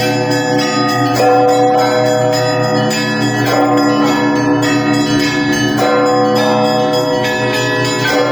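Russian Orthodox cathedral bells rung together in a festive peal. Low bells hum on steadily under repeated strikes of smaller bells, and their ringing tones overlap.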